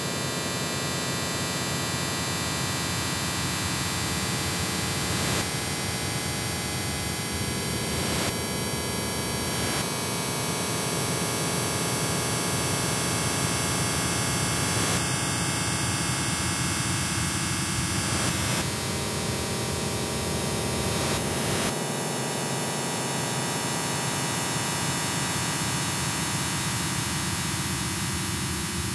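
Industrial noise music: a dense, steady wall of hiss and hum with many held tones layered in, its texture changing abruptly several times.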